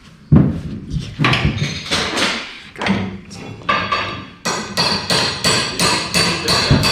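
A couple of loud knocks, then from about halfway a steady run of sharp metal strikes, about three a second, like hammering on the car's steel parts.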